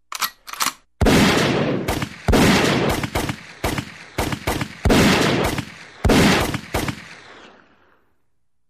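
Gunshot sound effect: a couple of light clicks, then about ten heavy shots at uneven spacing, each with a long echoing tail, dying away near the end.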